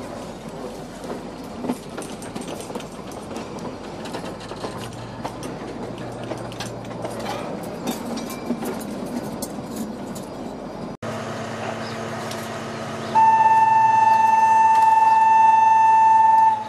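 Running noise of a narrow-gauge toy train heard from on board, with the wheels clicking over the rail joints. After a cut, a ZDM3 narrow-gauge diesel locomotive approaches with its engine running, then sounds its horn in one long steady blast of about three and a half seconds. The horn is the loudest sound and stops abruptly.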